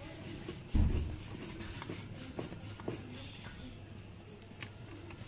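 Wooden rolling pin rolling paratha dough on a flour-dusted board, a soft repeated rubbing. A dull thump comes about a second in, and a few light taps follow later.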